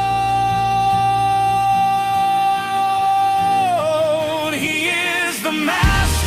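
Song with a voice holding one long high note for nearly four seconds, then singing on lower with vibrato, over a low bass accompaniment.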